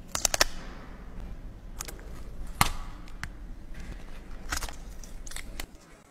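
Sharp clicks and taps of small hard objects being handled, about seven spread irregularly, the loudest a little before halfway, over a low steady hum.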